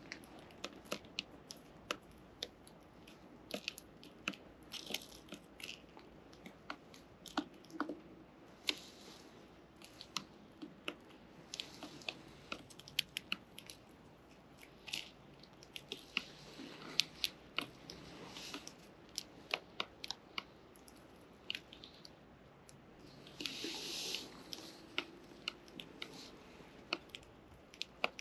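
Young sparrows pecking and cracking seed: an irregular run of sharp ticks and crunches, several a second, with a few short rustles in between.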